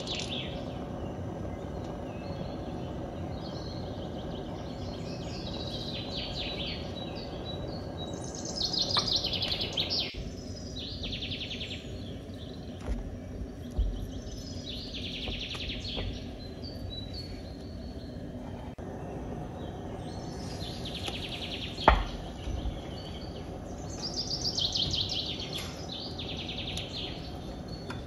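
Birds chirping in short trilled phrases that recur every few seconds, over a steady low background noise, with one sharp click about 22 seconds in.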